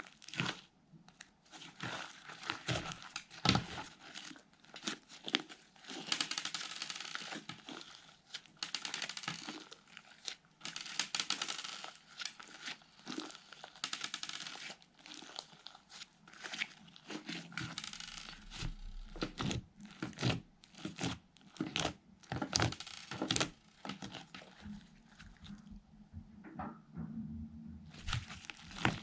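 Fluffy slime being squished and stretched by hand, with irregular sticky crackles and popping clicks.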